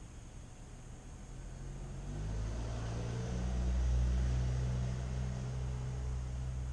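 A passing engine: a low hum that swells in about two seconds in, is loudest around four seconds, then eases off slightly.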